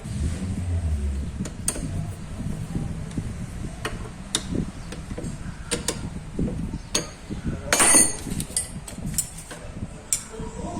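Hand tools working on metal during assembly of an engine's starter motor and alternator: scattered clicks and knocks of wrenches and bolts, with a louder clatter about eight seconds in.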